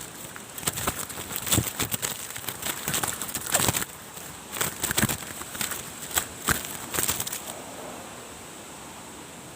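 Irregular rustling and crackling clicks, several a second, that stop about three-quarters of the way through, leaving a steady hiss.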